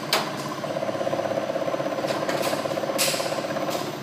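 Vertical milling machine running with its end mill spinning at low speed. A rapidly pulsing buzz starts about half a second in and stops just before the end as the table is moved on the cross feed. There is a click near the start and a short hiss about three seconds in.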